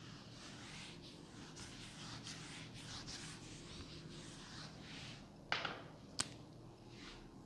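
Whiteboard duster wiping across a whiteboard in a series of soft, hissy strokes, followed about five and a half seconds in by a knock and, just after, a sharp click, the two loudest sounds.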